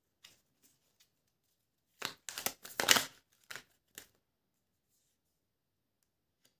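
Tarot cards being handled and shuffled: a few light clicks, then about two seconds of crisp riffling and snapping starting about two seconds in.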